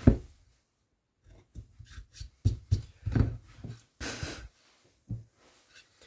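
Handling noises at a woodcarving bench: a string of knocks and taps as the carved wooden piece and tools are moved about, and one short scratchy hiss about four seconds in.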